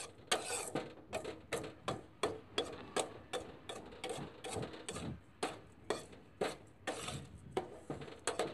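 A metal utensil scraping and stirring dry roasted mustard oil cake in a pan, in repeated scraping strokes about three a second, working the spices evenly through the grains.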